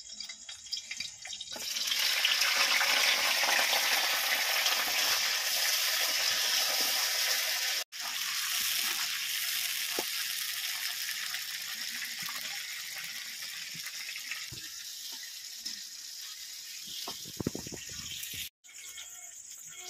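Sliced onions sizzling in hot oil in a kadhai. The hiss starts about a second and a half in and slowly fades, with a few spatula scrapes near the end as the onions are stirred.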